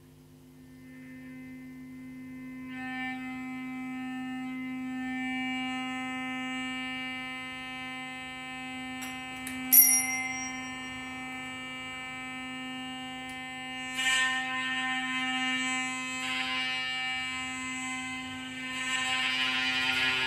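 Electric guitar strings held in a steady drone by EBows, layered tones that swell and grow louder. A small bell rings with a sharp strike about ten seconds in, more tones join around fourteen seconds, and it grows louder again near the end.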